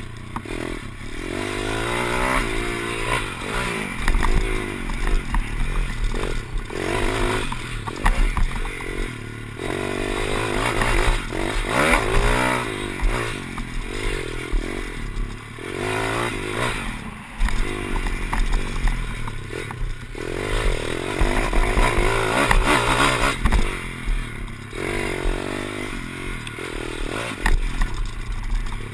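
Pit bike's single-cylinder engine heard from on board, revving up and falling back again and again as it is ridden round a dirt track, with rattles and knocks from the bike over the bumps.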